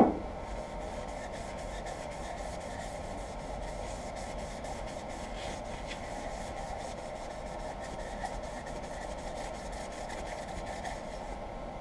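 Quick, repeated rubbing strokes against a pine workpiece chucked up for turning, over a steady hum, following a single knock at the very start. The rubbing stops shortly before the end.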